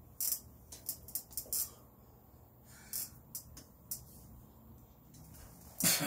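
Lips puffing on a cigar: a string of short, sharp clicks and smacks between quiet stretches. A louder, breathy burst comes near the end as a hand goes to the mouth.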